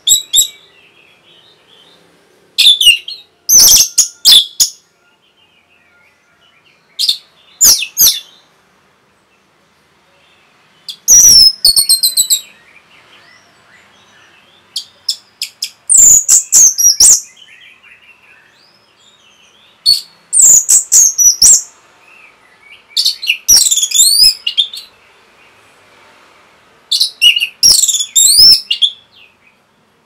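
Caged orange-headed thrush (Geokichla citrina) singing: short phrases of rapid, high notes every few seconds, about eight in all, with quiet gaps between.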